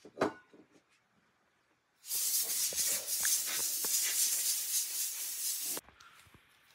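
Can of compressed air sprayed through its straw in one continuous hiss of almost four seconds, starting about two seconds in and cutting off sharply, blowing dust off a small metal laptop part. A single sharp click comes just after the start.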